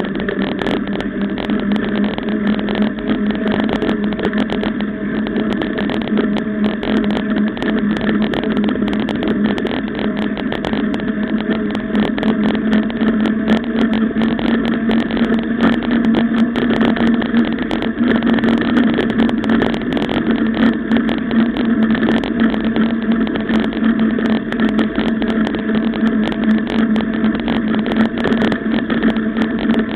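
Mountain bike rolling fast on asphalt, heard from a camera mounted on the bike: a steady humming drone of tyres and wind, with many small rattles and clicks. The hum rises slightly in pitch about halfway through.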